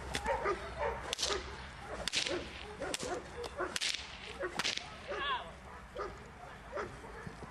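A training whip swishing and cracking about five times, roughly once a second, then stopping about five seconds in. Between the strokes a young Dobermann yelps and whines.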